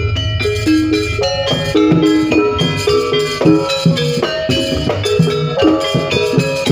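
Jaranan pegon music: pitched metallic percussion plays a quick run of short notes over drums and a heavily boosted bass, with no break.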